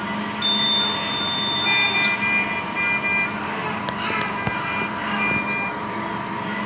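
Electronic beeping over a steady hum and background noise: one long high beep, then a series of shorter, evenly pitched beeps, as from patient monitors in a newborn intensive care unit.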